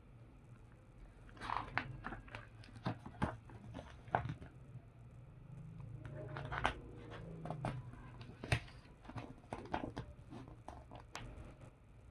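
Paper catalogue being handled and leafed through: irregular crackles, clicks and rustles of glossy pages and paper.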